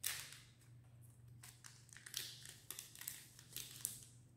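Sealed pouch of a COVID rapid antigen test cassette being torn open and handled. There is a sharp crackle right at the start, then scattered crinkling and small tearing sounds.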